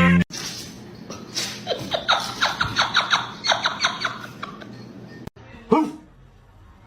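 A person laughing: a quick run of short laughs, about three a second, starting about a second and a half in and lasting around three seconds, then one more short sound near the end.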